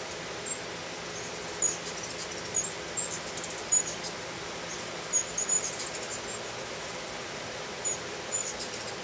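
Hummingbirds chattering around feeders: short, high, squeaky chips, scattered in several clusters over a steady background hiss.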